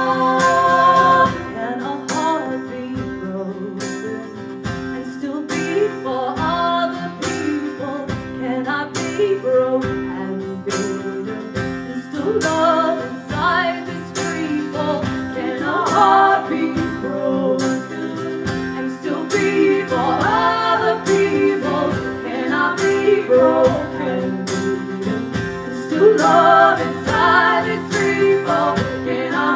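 Live acoustic song: strummed acoustic guitar with a steady beat about once a second, and a singing voice coming in and out.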